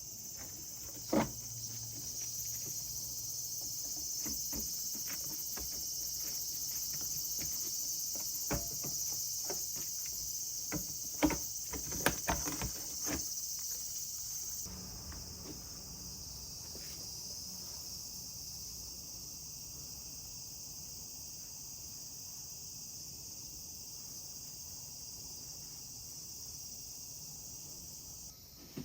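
Insects chirring steadily at a high pitch, the sound shifting abruptly about halfway through. A scatter of sharp clicks and knocks comes in the first half, the loudest near the middle.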